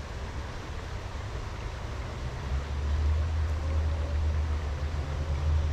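High, muddy creek water rushing steadily, with a low rumble underneath that grows louder about halfway through.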